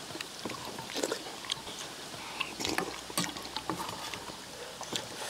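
People eating at a table: metal spoons and chopsticks clicking and scraping against stainless steel bowls at irregular moments, with chewing and slurping of stew.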